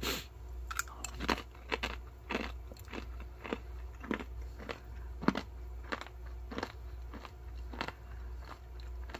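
A dried banana chip being bitten and chewed: a run of sharp, dry crunches, about two a second.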